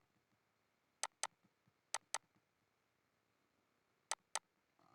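Computer mouse button clicking: three pairs of short, sharp clicks, one about a second in, one about two seconds in and one about four seconds in.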